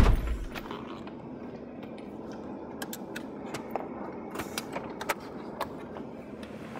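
A car door thuds shut at the start, then a string of small clicks, knocks and rattles of keys and fittings as someone moves about in the driver's seat.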